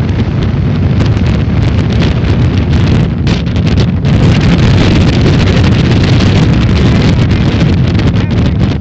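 Wind buffeting the phone's microphone, loud, over the engine and rushing water of a speedboat running at high speed.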